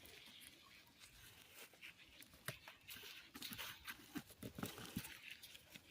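Faint, scattered rustles and soft ticks of hands sifting through damp potting soil and small sweet potatoes.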